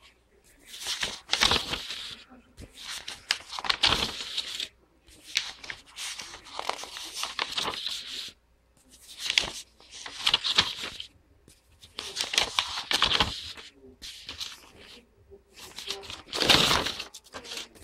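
Paper rustling and crinkling in repeated bursts about a second long, as the sheets of a printed bill are handled and moved.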